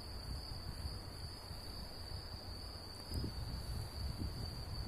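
Night insects trilling: one steady, unbroken high-pitched trill, over a low rumble with a couple of soft thumps.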